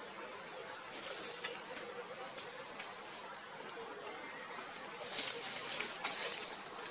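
Short, high-pitched animal chirps and squeaks over a steady outdoor hiss, with scattered soft clicks; the calls come in the second half, the loudest near the end.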